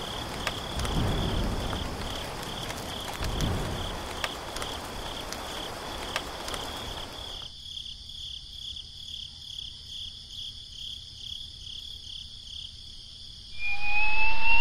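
Insects chirping: a steady high-pitched pulsing trill, with a few low thuds in the first few seconds. Near the end a loud rising whistle-like glide cuts in over it.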